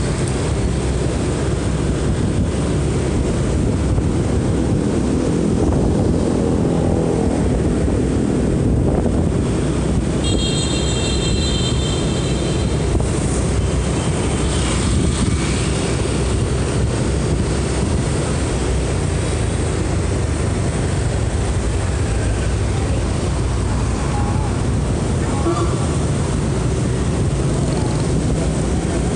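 Wind buffeting the microphone on a moving motor scooter, over a steady low rumble of engine and road noise. About ten seconds in, a high tone sounds for about two seconds.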